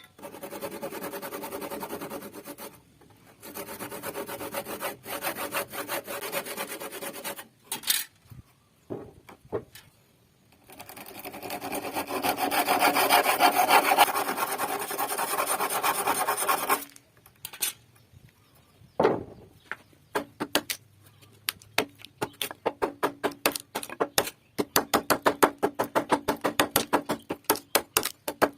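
Wood being sawn to cut a beam joint. It comes in long runs of fast scraping strokes with short pauses, then from a little past halfway as separate, rhythmic strokes, about three a second.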